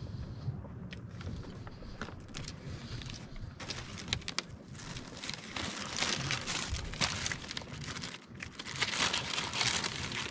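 Plastic bread bag and food packaging crinkling as they are handled. The crackling is sparse at first and comes in dense bursts through the second half.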